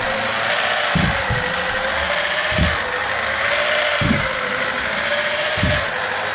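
Electric drive motor and gear train of a 3D-printed walking bug robot running with a loud grinding whine that wavers slightly in pitch, and a low thud about every second and a half as the legs step. The 'horrible rah' noise is from the motor being mounted a little too close, so the gears mesh too tightly.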